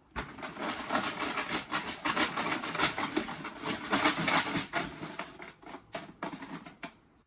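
Numbered draw pieces rattling and clicking as the raffle container is shaken to mix them before a number is drawn. The shaking is continuous and irregular, then stops near the end.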